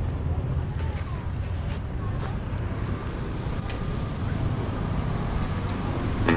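Busy street-market ambience: a steady low rumble of motorbike traffic, with faint voices of passers-by and a few light knocks.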